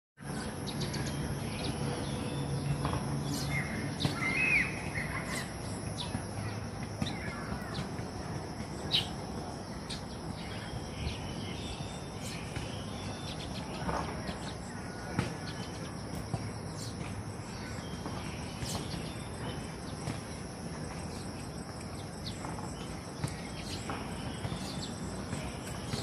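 Scattered short bird chirps over a steady, high-pitched insect drone in the treetops.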